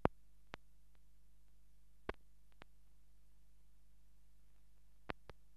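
Faint steady electrical hum with scattered sharp clicks and pops: the background noise of a silent newsreel transfer with no recorded soundtrack. The loudest click comes right at the start, and two come close together near the end.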